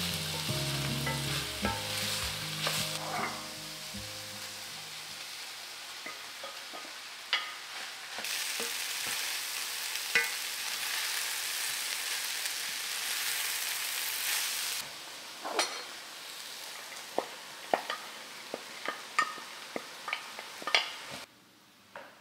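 Meatless grounds with onion and mushrooms sizzling in an enameled cast-iron pan as a wooden spoon stirs them, with sharp clicks of the spoon against the pan. The sizzle cuts off about a second before the end.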